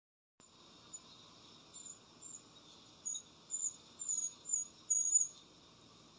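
A bird chirping, about ten short, high chirps, some sliding slightly down in pitch, getting louder toward the end, over a steady high hiss.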